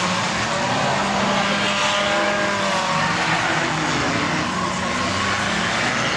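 Several small race cars circling an arena, their engines revving over one another with pitches that rise and fall.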